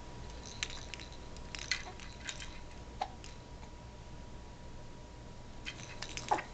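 Small clicks and mouth noises from a three-month-old baby, with two short vocal blips, the louder one near the end and falling in pitch.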